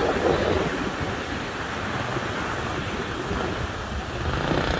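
Wind buffeting a phone's microphone: a steady rushing noise with an uneven low rumble.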